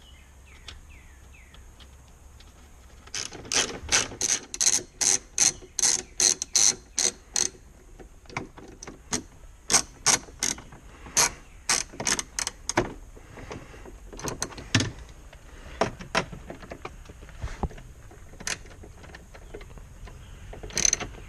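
Ratchet wrench clicking as it runs 10 mm nuts onto the dashboard mounting studs. It goes in runs of sharp ratchet clicks, quick and regular for the first several seconds, then more broken up and sparser toward the end.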